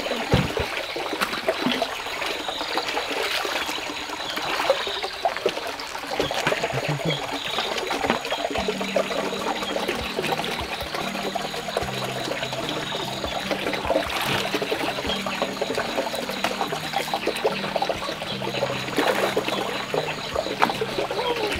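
Shallow stream water trickling over rocks, dotted with small splashes and knocks as stones are turned over by hand.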